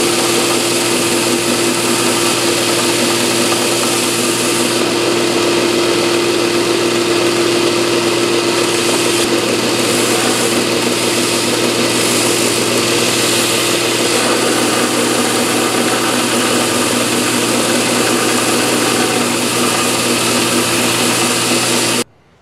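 Stationary belt sander with an 80-grit belt running while a wooden workpiece is pressed on it to shape its corners: a steady motor hum with the rasp of the abrasive on the wood. It cuts off suddenly near the end.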